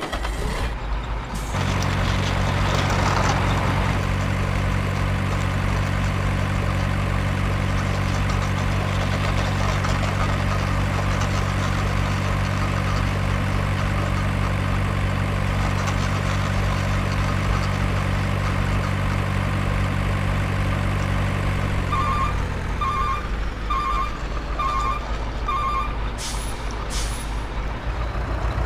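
Truck sound effect: a diesel truck engine running with a steady low drone, which fades about 22 seconds in as a reversing alarm beeps five times, roughly one beep every three quarters of a second.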